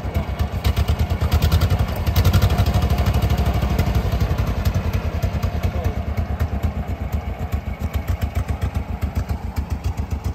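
Tractor engine running close by, a fast, even beat of exhaust pulses. It picks up about two seconds in, then gradually eases off.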